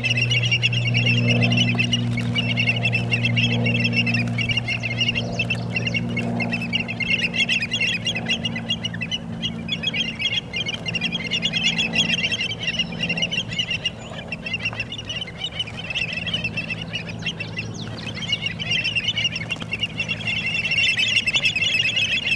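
A flock of birds chattering and calling continuously, many voices at once, thinning out midway and swelling again near the end, over a steady low hum.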